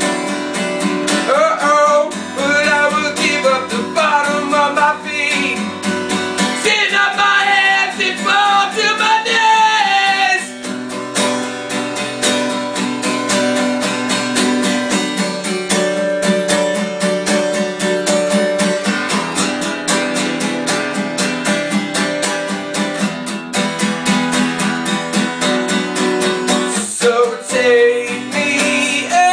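Music: an acoustic guitar strummed in a steady rhythm, with a melody line sliding in pitch over it for about the first ten seconds, then the strumming carrying on alone until a brief melodic phrase returns near the end.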